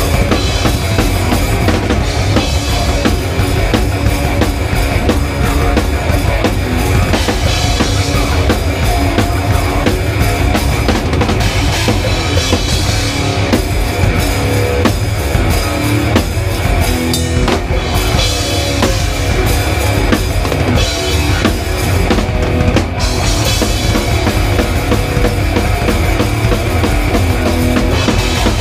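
Live rock band playing loud and fast, picked up at the drum kit so the drums dominate: a driving bass drum and snare under crash cymbals that swell every few seconds.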